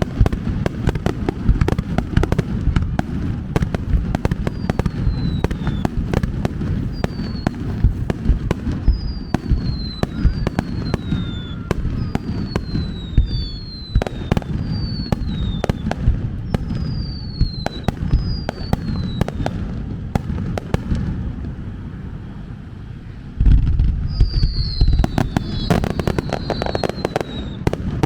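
Close-range fireworks finale: a nonstop barrage of shell bursts and crackling, with many short whistles falling in pitch. The barrage eases for a couple of seconds near the end, then resumes with a sudden loud volley.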